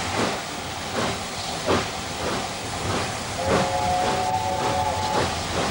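Steam locomotive working steadily, with evenly spaced exhaust chuffs about every two-thirds of a second over a hiss of steam. About three and a half seconds in, its whistle sounds a three-note chord for nearly two seconds.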